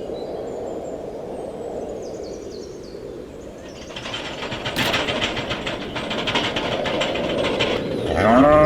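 A low steady rumble, joined about four seconds in by a fast, even mechanical rattling. Near the end a cow moos loudly.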